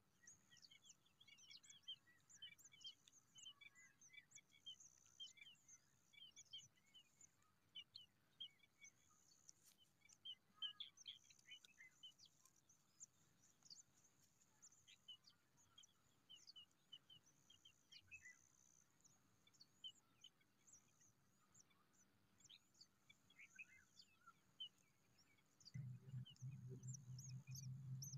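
Faint chirping of small birds: many short, high calls scattered throughout, over a thin high hiss that comes and goes. A low steady hum comes in about two seconds before the end.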